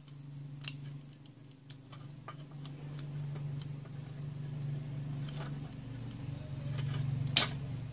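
Small clicks and taps of a solar light's plastic housing and parts being handled and fitted together, with one sharp click near the end, over a steady low hum.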